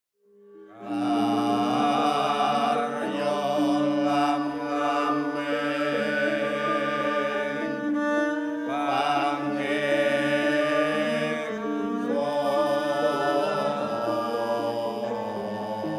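Javanese gamelan music starting out of silence and up to full level within the first second: long held notes and wavering melody lines over a steady bed of struck metallophone tones.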